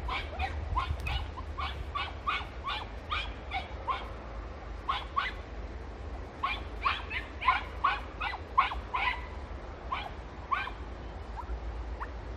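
Podenco puppies yelping in short, high, falling cries, in irregular bursts of a few yelps a second with pauses between: hounds giving tongue as they follow a scent trail. A steady low rumble on the microphone runs underneath.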